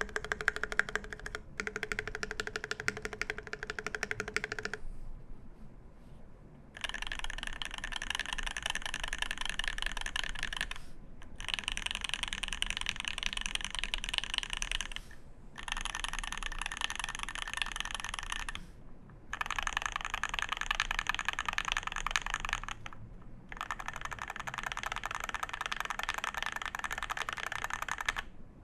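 Fast typing on a TOFU96 mechanical keyboard with a brass plate, lubed C³ Tangerine 67g linear switches and GMK keycaps: a dense run of key clacks. It breaks off for about two seconds some five seconds in, and later pauses briefly between runs of a few seconds each.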